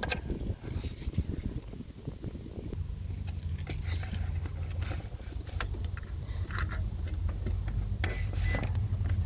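Small clicks and scrapes as a new engine thermostat is handled and set into its housing. About three seconds in, a steady low rumble sets in and slowly grows louder beneath them.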